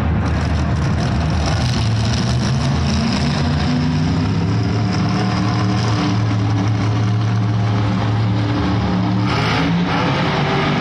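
Monster truck engines running loud and steady, with the pitch climbing in revs and a brief louder burst of revving near the end.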